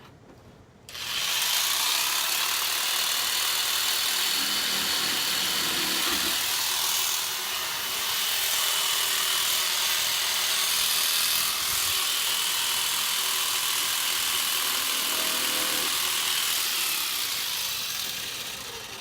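Electric power saw cutting through the wooden box wall in one long continuous cut, starting about a second in and dying away near the end.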